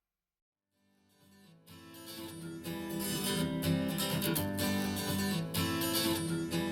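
A pop song's intro with strummed acoustic guitar, played back through active desktop speakers. The music fades in about a second in and is steady after that.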